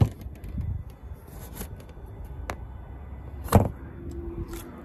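Handling of the plastic cowl trim at the base of a car windshield: a sharp click at the start, a lighter click, and a louder knock about three and a half seconds in, with a few small clicks near the end.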